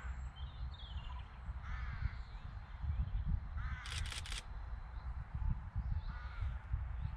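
A crow cawing, three calls a couple of seconds apart, over a steady low rumble, with a quick run of three sharp clicks about four seconds in.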